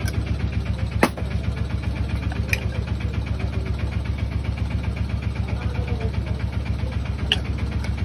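An engine idling steadily with a rapid, even pulse. A sharp click comes about a second in, with a couple of faint ticks later.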